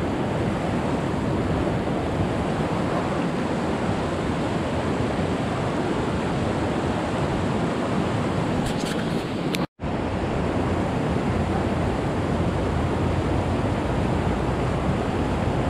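Mountain creek rushing over rocks into a pool: a steady wash of water noise, cut by a brief silent gap just under ten seconds in.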